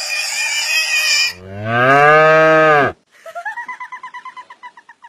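A loud hissing squeal cuts off about a second in. Then comes one long, low moo that drops in pitch at the end. After it, a higher-pitched call pulses rapidly, about ten times a second.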